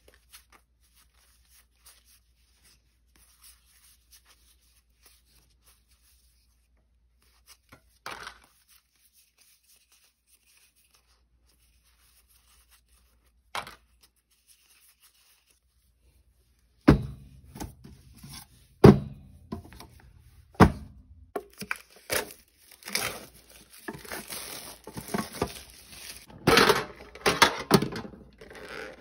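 Pokémon booster pack handling: mostly quiet with a few faint clicks at first, then, past the halfway mark, three sharp knocks on the table followed by steady crinkling and tearing of the foil pack wrapper.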